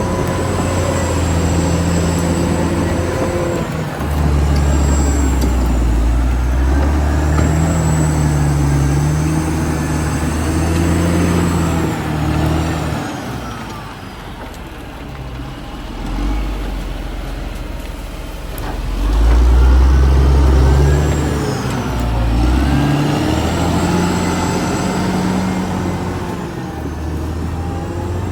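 Caterpillar D6R XL bulldozer's diesel engine working under changing load, its pitch and level stepping up and down, with a high whine that rises and falls over it. It eases off about halfway through, then pulls hard again.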